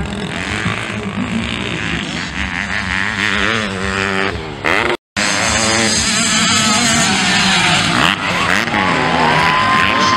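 Youth motocross dirt bike engines revving hard and shifting as the bikes race past, the pitch rising and falling over and over. The sound cuts out for an instant about five seconds in.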